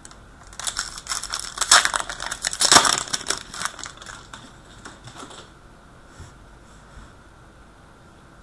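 Crinkling and tearing of a trading-card pack's foil wrapper as it is opened, in a dense crackling run that is loudest about two to three seconds in and dies down to a few soft clicks of card handling.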